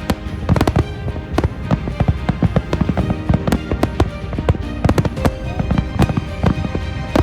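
Fireworks going off in a dense, irregular run of bangs and crackles, several a second, with music playing underneath.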